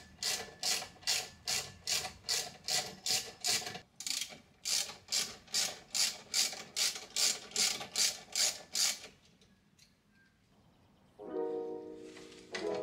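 Ratchet wrench and socket loosening a windscreen wiper arm's retaining nut: a steady run of ratcheting clicks, about three or four a second, that pauses briefly a few seconds in and stops about two-thirds of the way through. Background music comes in near the end.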